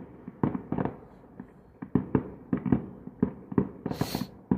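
Distant fireworks display, about 2 km off: an irregular string of a dozen or more sharp bangs from shells bursting, with a brief hiss near the end.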